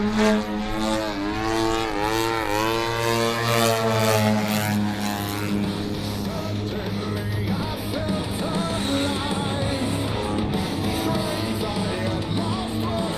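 Twin-cylinder two-stroke Desert Aircraft DA-120 petrol engine of a 35% scale Edge 540 RC aerobatic plane in flight, its pitch dipping and rising twice in the first few seconds. From about five seconds in, rock music with guitar and singing takes over.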